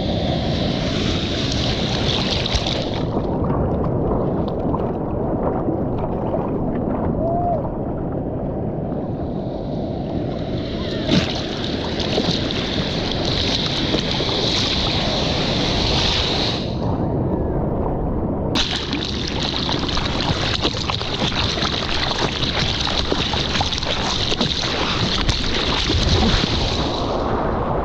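Sea water rushing and splashing around a surfboard while surfing, heard close up at water level. The higher hiss drops away twice for a few seconds, the first time about three seconds in.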